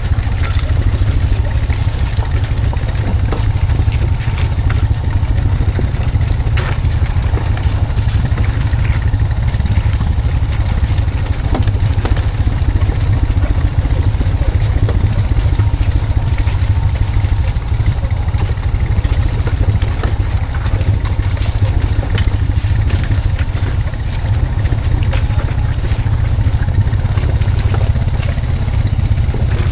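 Honda Foreman 520 ATV engine running steadily, with some clatter, as it pulls a log on the skidding arch.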